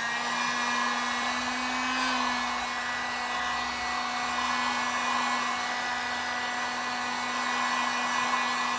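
A 1500-watt dual-temperature heat gun running steadily: a steady fan-motor hum under a rush of blown air, warming taillight tint film to set it.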